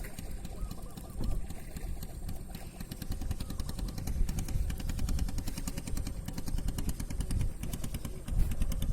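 A small engine running steadily, with a fast, even firing beat.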